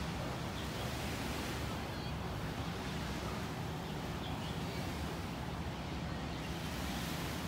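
Steady seaside ambience: small waves lapping at the shore and wind on the microphone, over a constant low rumble.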